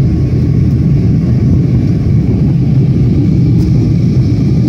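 Airliner cabin noise: a steady, loud low rumble of engines and airflow heard from inside the passenger cabin.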